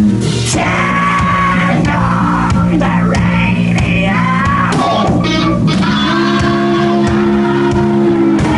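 Live hard rock band playing loud: bass guitar, electric guitar and drum kit, with a singer's shouted vocals over them. The full band is already at full level right at the start, after a brief drop just before.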